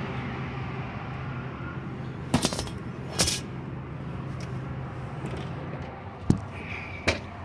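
Scattered knocks, clicks and clunks from someone climbing into and moving about a truck cab, over a steady low hum. The sharp ones come about two and a half seconds in, about a second later, and again twice near the end, the one after six seconds a dull thump.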